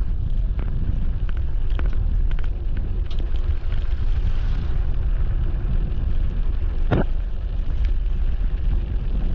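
Wind buffeting the microphone while cycling, a steady low rumble, with a single short knock about seven seconds in.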